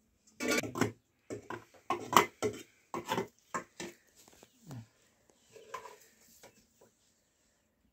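Metal pots, dishes and utensils clattering and clinking against each other: a quick run of sharp clinks over the first four seconds or so, then a few softer knocks.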